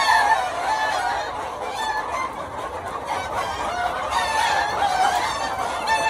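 A large flock of chickens, mostly roosters, clucking and calling over one another without a break.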